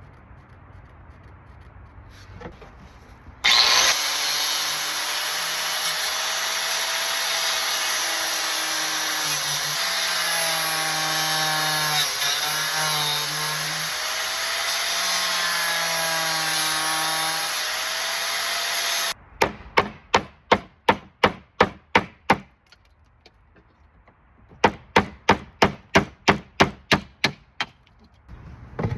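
An angle grinder runs under load on metal for about fifteen seconds, its motor whine dipping and recovering as it bites, then cuts off suddenly. Two runs of rapid, even strokes follow, about five a second, each lasting a few seconds.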